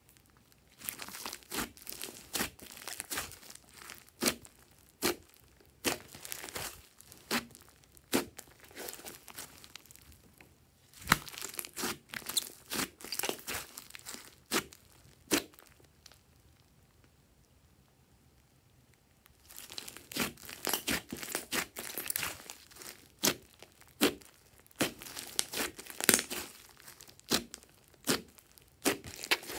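Hands squeezing, pressing and stretching a large mass of slime mixed with small foam beads: a rapid run of wet clicks, pops and crackles, broken by a short pause and then a quiet spell of about three seconds past the middle.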